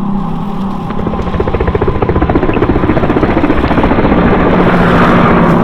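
Electric blender running with ice rattling inside as a drink is blended, a steady motor hum under dense clicking, switched off abruptly near the end.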